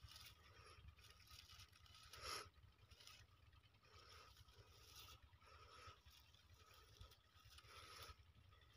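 Near silence, with faint rustling of hands picking through dry grass and melon vines; one slightly louder rustle about two seconds in.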